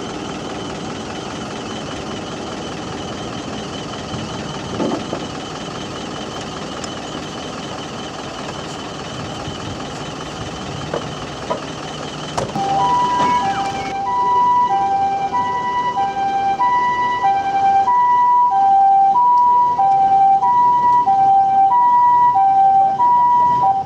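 A helicopter running steadily with a high whine. About thirteen seconds in, a Japanese ambulance siren starts its two-tone hi-lo call, alternating about once a second and louder than the helicopter.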